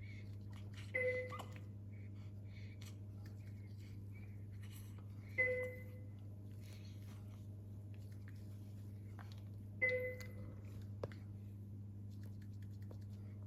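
A medical equipment alarm beeping: a short two-tone chime three times, about four and a half seconds apart, over a steady low hum.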